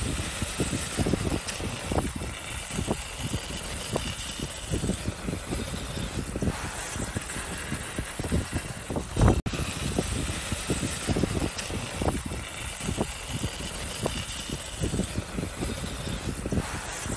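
Fagradalsfjall volcano erupting: irregular low rumbling and popping from the lava fountain and lava flow over a steady hiss, with one louder thump about nine seconds in.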